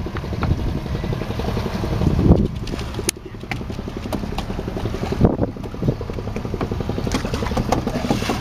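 A fishing boat's engine runs steadily with a low, even thudding, and a few clicks and knocks sound from on board, two of them louder, about two and five seconds in.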